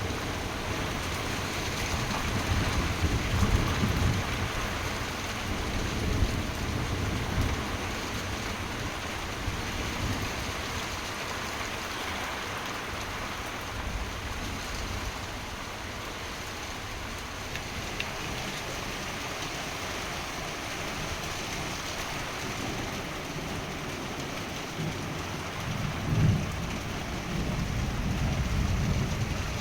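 Heavy rain pouring steadily during a night thunderstorm, with low rolls of thunder swelling about three seconds in and again near the end.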